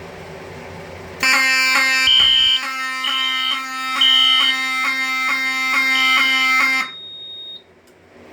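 Fire alarm horn sounding a steady, loud tone for about six seconds, tripped by a smoke detector set off with a magnet during an audible walk test. A higher beep pulses about once a second over it. It starts about a second in and cuts off suddenly.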